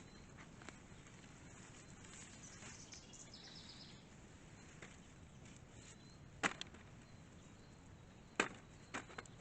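A digging tool striking hard, dry garden soil while potatoes are dug: two sharp hits about two seconds apart, then two lighter ones just before the end.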